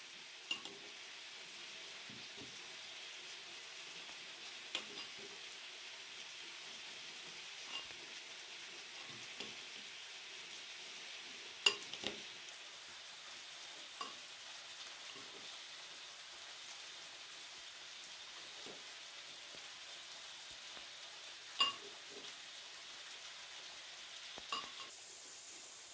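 Chopped eggplant, chicken and herb salad being tossed and mixed in a ceramic bowl: a steady soft hiss of moist food being turned over, broken by a few sharp clinks of metal forks against the bowl, the loudest about halfway through and again near the end.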